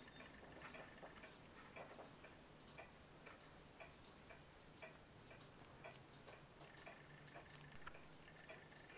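Near silence with a clock ticking faintly and evenly.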